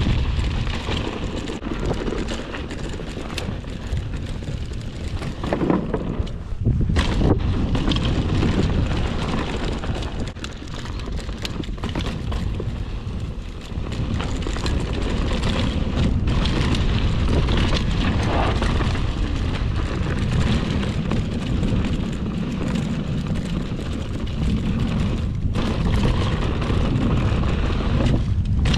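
Mountain bike riding fast down a dry dirt trail: wind buffeting the microphone over the rumble of tyres rolling on dirt, with the bike rattling and sharp knocks now and then over bumps.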